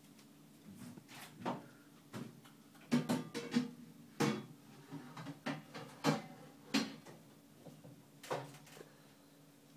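A series of short rustles and soft knocks, irregularly spaced, over a faint steady low hum.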